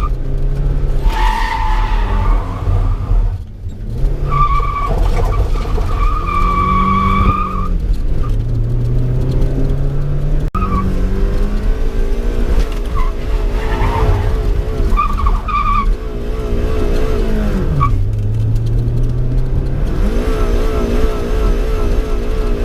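Car driven hard: the engine revs up and down several times, with tyres squealing and skidding.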